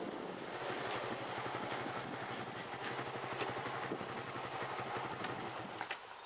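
Suzuki Raider 150's single-cylinder four-stroke engine running at low speed as the motorcycle rolls slowly along, with a steady pulsing note. The engine sound drops away near the end.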